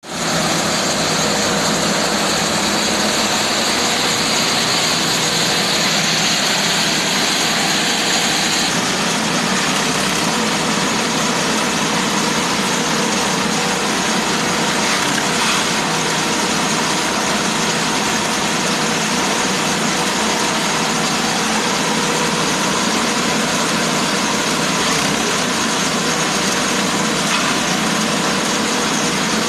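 Engine-driven grass chopper machine running steadily at speed. A high whine sounds over it for about the first nine seconds and then stops.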